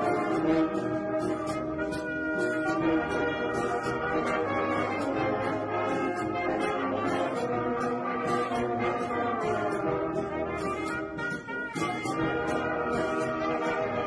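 A full brass band of sousaphones, euphoniums, trumpets and other brass playing a tune together in harmony over a steady beat.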